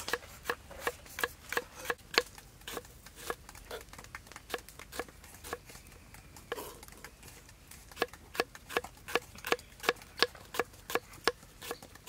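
Kitchen knife slicing small green eggplants on a thick wooden chopping block, each cut ending in a sharp knock of the blade on the board, about two to three a second, with a brief lull in the middle.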